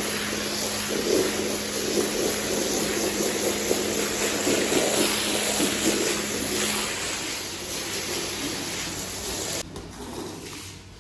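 Pressure-washer jet hissing and splashing onto a soaked rug, a loud steady spray with a low hum underneath for most of it. Near the end the spray cuts off abruptly and the sound drops to something much quieter.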